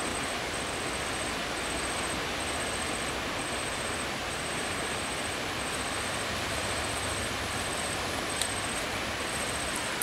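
Steady, even outdoor rushing noise at the seashore, with a faint high-pitched whine that comes and goes in short stretches.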